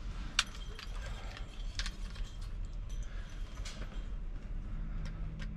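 Scattered light clicks and taps of a plastic phone mount being handled while the backing film is picked off its adhesive pads, a few sharp ticks spaced a second or more apart over a low steady hum.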